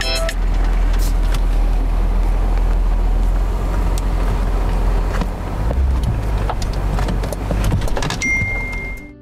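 VinFast President SUV's 6.2-litre V8 engine running, a low steady rumble, with a short high beep near the end.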